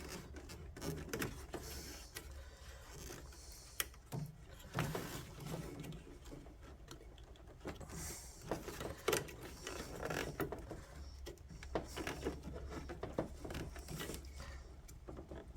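Scattered clicks, taps and rustling of hands working plastic wiring-harness connectors loose from a car's engine computer (PCM).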